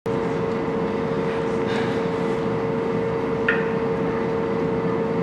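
Steady background hum: an even hiss with one constant tone held unchanged throughout, and a small click about three and a half seconds in.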